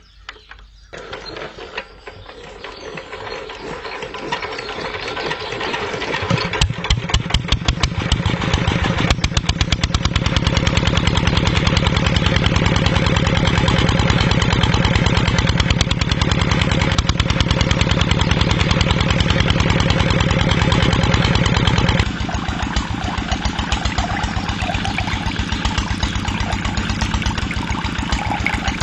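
A small engine starts up and builds to a fast, even pulsing run. It holds steady, then drops suddenly to a lower level near the end.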